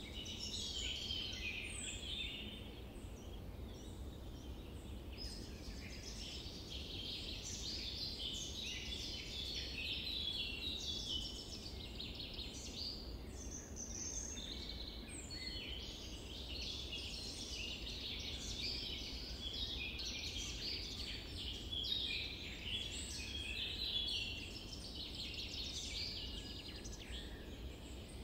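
A dense chorus of small birds chirping and twittering continuously, many calls overlapping, over a low steady background rumble.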